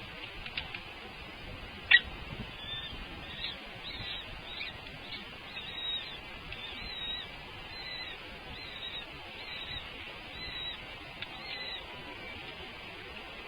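Bird calls: a long run of short, high chirps repeating in quick succession, with one sharp click about two seconds in.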